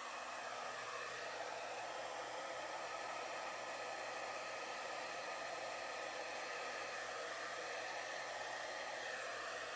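Handheld hair dryer running steadily at medium fan speed, a continuous airy whoosh of blown air.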